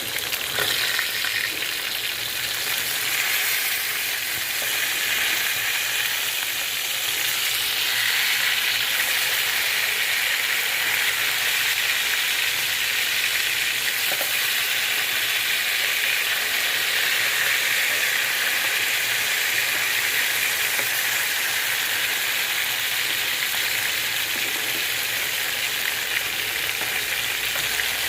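Pieces of katla fish frying in hot oil, a steady sizzle that grows a little louder about eight seconds in.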